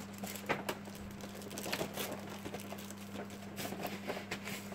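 Light, irregular rustling and clicking of cardboard box and plastic packaging being handled while a statue is taken out, over a steady low hum.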